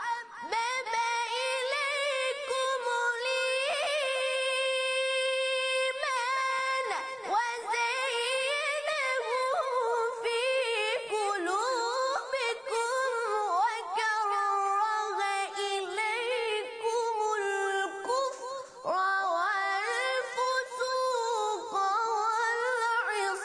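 Qur'anic recitation in a high voice, chanted tajweed-style in long drawn-out melodic phrases with many ornamented turns, broken by a few short pauses for breath.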